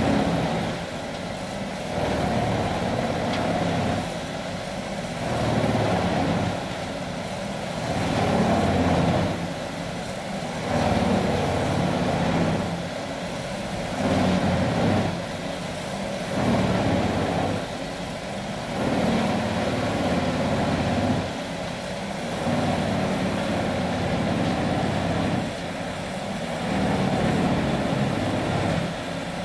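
Vermeer 6000 TX wood grinder running under load, grinding ash logs and mixed hardwoods. Its heavy engine and grinding noise swell louder every two to three seconds, then ease back, in a steady rhythm.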